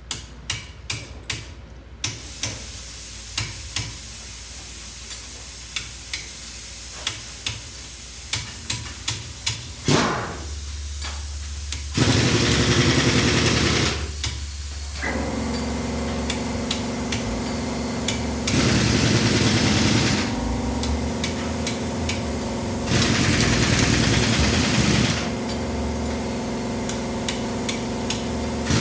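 A series of sharp metallic clicks and taps, then a wheel loader's diesel engine starts about ten seconds in and runs steadily, growing louder three times as if revved.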